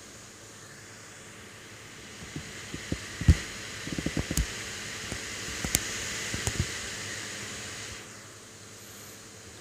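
Handling noise as a plastic baby doll in a knitted sweater is moved about by hand: rustling with a cluster of low bumps and knocks and a few sharp clicks, over a steady low hiss. The loudest knock comes about three seconds in, and the rustling dies away about eight seconds in.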